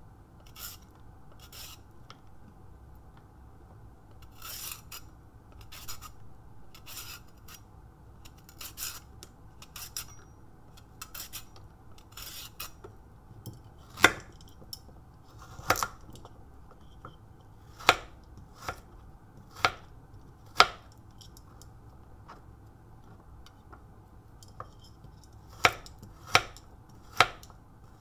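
A vegetable peeler scraping along a raw carrot in repeated short strokes, then a kitchen knife slicing the carrot on a wooden cutting board, each cut ending in a sharp knock on the board about one to two seconds apart.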